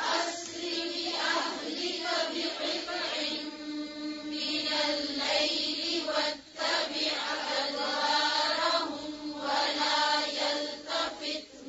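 Quranic verse recited in a melodic chanting voice, softer and thinner than the recitation around it, over a steady hiss.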